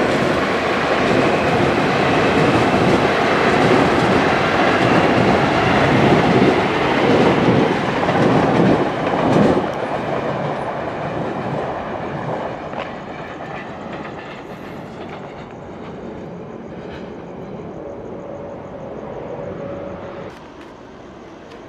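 Electric passenger train passing close by, its wheels clattering over the rail joints. The noise is loudest for the first ten seconds, then fades steadily as the train moves away.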